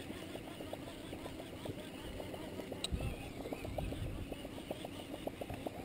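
Baitcasting reel cranked fast during a bucktail retrieve, a steady mechanical whir made of many quick ticks. There is one sharp click a little before the middle, and a low rumble of boat and handling noise in the second half.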